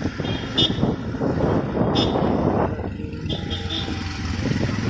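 Busy street traffic: vehicle engines running, with a few brief high-pitched toots.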